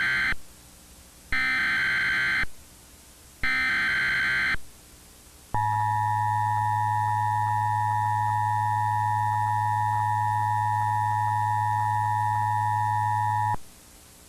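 Emergency Alert System header: the tail of one data burst, then two more shrill warbling bursts of about a second each, marking the start of an emergency alert. They are followed by the two-tone EAS attention signal, held steady for about eight seconds over a low hum and cutting off sharply.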